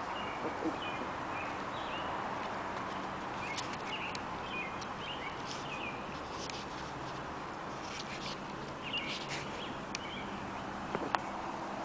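Scattered short, high squeaky animal calls, clustered in two spells, over a steady background hiss, with a few sharp clicks.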